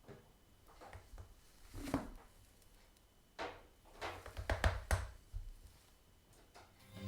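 Clicks and knocks of a Panasonic SG-X10 stereo system being handled and its controls operated, just before playback starts. There is a louder knock about two seconds in and a cluster of clicks and knocks over the next few seconds.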